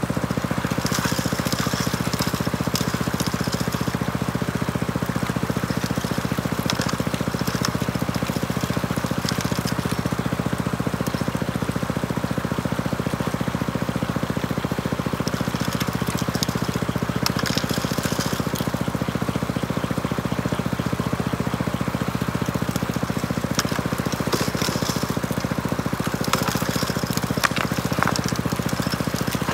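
Small engine-driven water pump running steadily to feed a high banker, with gravel and rock clattering and rattling on the grizzly now and then.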